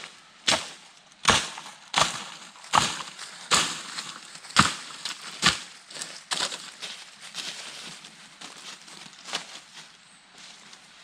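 A blade chopping into wood in a steady rhythm, about one stroke every three-quarters of a second. There are eight sharp blows over the first six seconds or so, then a few lighter ones.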